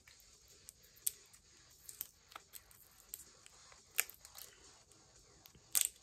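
Plastic candy wrapper crinkling and crackling as fingers peel it open. There are sharp crackles about a second in and at two seconds, and the loudest ones come at four seconds and near the end.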